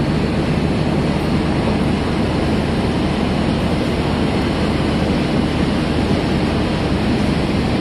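CRH1E high-speed electric multiple unit running along a station platform: a steady noise of wheels on rail and running gear as the carriages pass.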